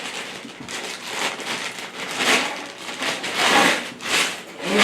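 Packaging rustling and crinkling as the vacuum's extension tubes are unpacked, with louder swells about halfway through and again near the end.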